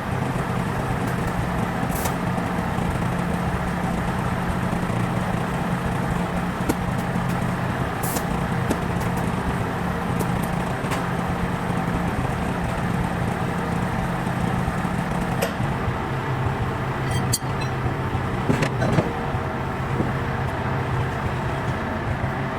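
An engine running steadily, settling to a slightly lower pitch about fifteen seconds in, with a few sharp metallic clicks and knocks.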